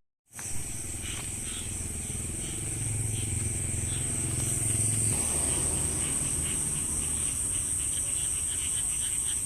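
Night chorus over rice paddies: a steady high insect trill with repeated short chirping calls of frogs and crickets, the chirps coming quicker near the end, over a low hum.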